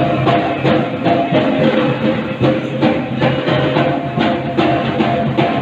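Music with a steady drum beat.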